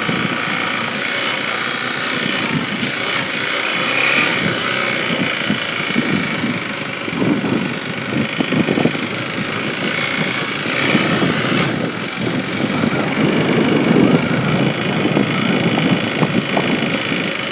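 A motor vehicle's engine running steadily, with uneven surges in the low rumble.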